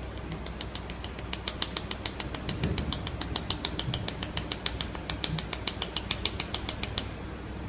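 Pulsed mould-repair laser welder firing, each laser pulse a sharp snapping click, in a steady train of about six a second that stops near the end.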